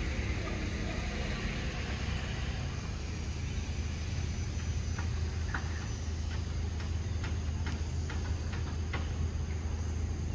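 Long-tailed macaque biting and chewing a yellow fruit: short, irregular clicks and smacks of eating from about halfway through, over a steady low rumble.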